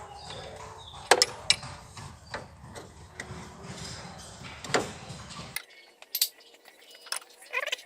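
Hand tools and loose metal parts clinking and knocking against each other during work on an engine, in a series of sharp irregular clinks. A low background rumble stops abruptly about five and a half seconds in.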